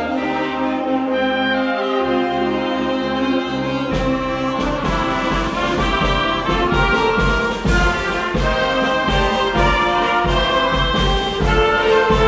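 Wind ensemble playing, with brass holding full chords. About four seconds in, the drum kit comes in with a steady beat under the band.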